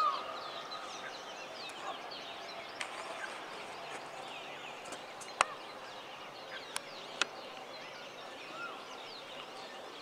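Morning birdsong: many birds chirping and twittering together, with a louder arched whistled call right at the start and again near the end. A few sharp clicks stand out about halfway through.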